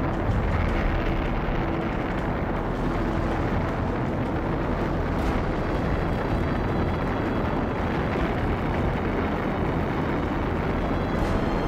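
Saturn V rocket's five F-1 first-stage engines at liftoff: a loud, steady, noisy rumble with a heavy low end and no break.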